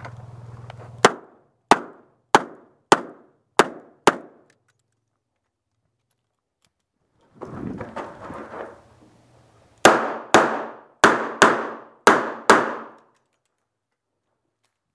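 Revolver gunfire: two strings of six shots, each at about two shots a second. The first string comes about a second in, the second about ten seconds in. Between them is a stretch of shuffling and handling noise.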